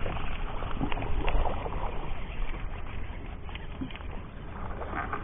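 Small waves lapping and sloshing against a boat's hull, with wind rumbling on the microphone and a few light knocks.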